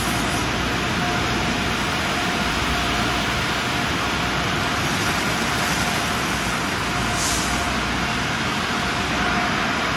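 Automatic tunnel car wash running: spinning foam-strip wash brushes slapping against a vehicle amid spraying water and running machinery, a steady wash of noise with a faint constant whine.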